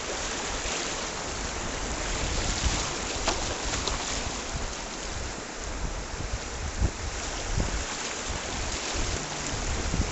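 Rushing water of a river rapid with wind buffeting the microphone, and a few sharp knocks and splashes, the loudest about a third of the way in and again past the middle.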